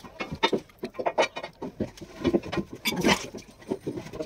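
Irregular knocks, taps and clatter of hands and tools working around a boat's marine engine and transmission, in a cramped engine compartment.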